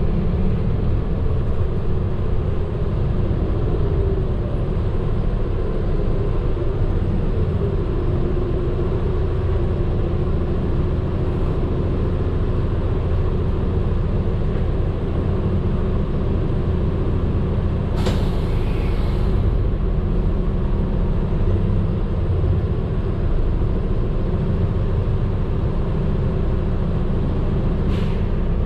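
Medium bus running on the road, heard from inside the cabin: a steady engine and road rumble, with a short hiss of air about eighteen seconds in and a brief one near the end.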